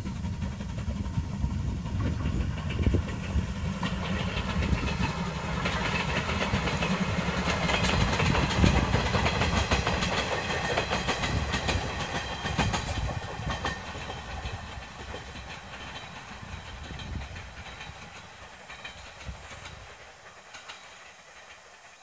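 Steam train of passenger coaches passing, its wheels clattering over the rail joints. It is loudest about eight to nine seconds in, then fades steadily as the train moves away.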